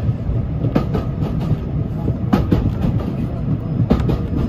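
Passenger railway carriage running along the line, heard from inside the coach: a steady rumble with pairs of sharp clicks as the wheels cross rail joints, three pairs about a second and a half apart.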